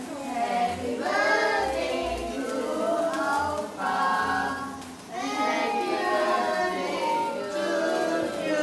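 A song with a group of voices singing, children's voices among them, over a low bass line.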